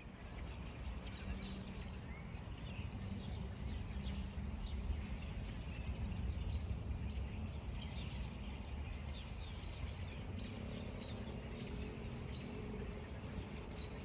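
Many birds chirping and calling at once, a dense run of short, overlapping calls, over a steady low background rumble.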